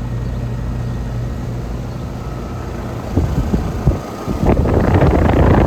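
2017 Weather King central air conditioner condenser running, its compressor giving a steady low hum. From about three seconds in, gusty rushing air buffets the microphone, and it is loudest near the end.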